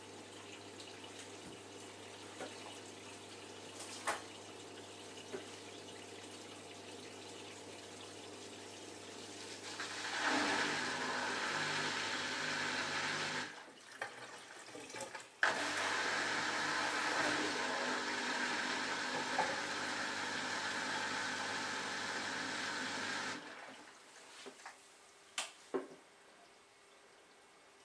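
Samsung Ecobubble WF1804WPU washing machine with water rushing through it in two long bursts, one of about three seconds and one of about eight, with a short pause between them. Before them there is a low steady hum, and near the end two sharp clicks.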